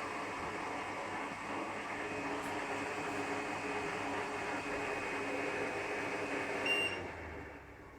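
Bladeless fan running with a steady rush of air and a low motor hum. Near the end a short electronic beep sounds, and the airflow dies away.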